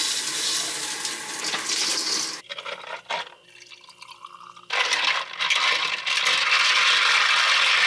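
Handheld shower head turned on, water spraying steadily in a small shower cubicle, cut off about two and a half seconds in. After a quieter stretch with a soft pour and a few light clicks, a steady rush of water-like noise starts just before the five-second mark.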